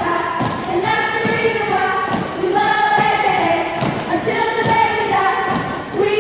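A group of women singing a chant in unison, long held notes, with repeated thumps, likely stomping feet, under the voices.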